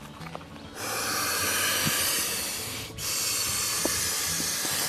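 Two long, loud hisses of about two seconds each, with a brief break between them; the second cuts off suddenly. The hunter takes the hiss for a turkey hissing.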